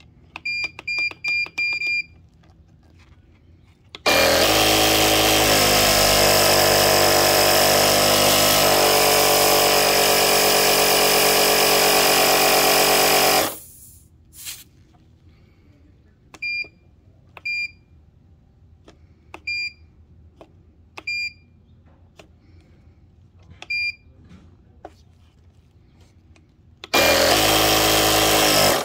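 West Marine 1200 peak amp power station's built-in air compressor running steadily for about nine seconds, then starting up again near the end. Around it, the unit's control panel beeps at button presses: a quick run of about five beeps in the first two seconds, and single beeps every second or two in the gap between runs.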